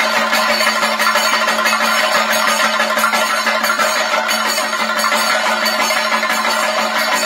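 Thayambaka: an ensemble of Kerala chenda drums struck with sticks, playing a fast, dense, unbroken stream of strokes, with a steady ringing tone underneath.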